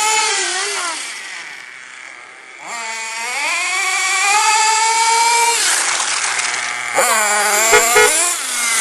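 Carson nitro RC car's small glow-fuel engine revving high and changing pitch as the car drives. It fades about a second in, comes back with a rising whine near three seconds, drops in pitch around six seconds, then revs again with a couple of short thuds near the end.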